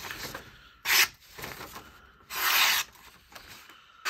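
Fixed-blade knife slicing through a sheet of printer paper: a short, loud slice about a second in and a longer slicing hiss around two and a half seconds, with paper rustling in between.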